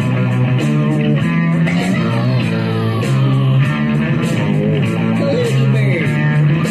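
Rock music: guitar playing over a steady bass line, with a few sliding notes.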